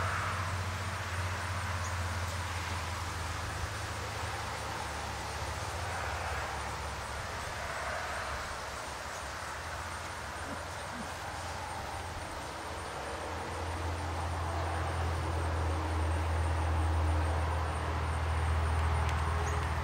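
Steady low rumble with an even hiss above it, easing off in the middle and swelling again over the last several seconds.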